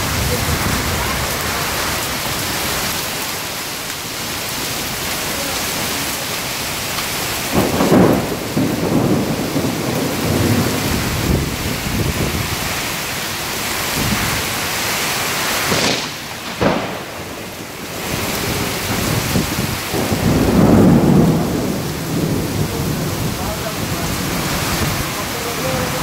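Thunderstorm: heavy rain and strong wind hiss steadily. Thunder rumbles about eight seconds in and again about twenty seconds in, with a brief lull around sixteen seconds.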